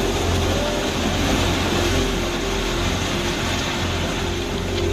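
Continuous rumbling roar as a multi-storey building collapses into a flooding river: rushing floodwater mixed with falling masonry, with no single sharp crash standing out.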